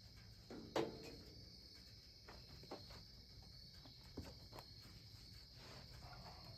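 Faint outdoor background with a steady high insect drone, broken by a few soft knocks, the loudest about a second in.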